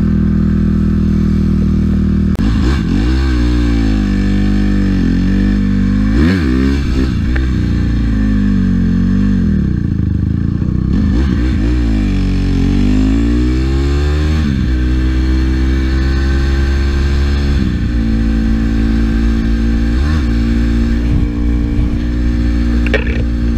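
Dirt bike engine running under the rider: steady for the first couple of seconds, then revving up and falling back again and again as it accelerates and slows, then holding a steadier, higher pitch while cruising, with a couple of brief dips near the end.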